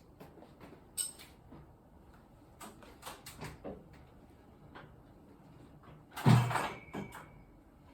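Scattered clicks and knocks, then a louder heavy clunk about six seconds in, followed by a brief squeak.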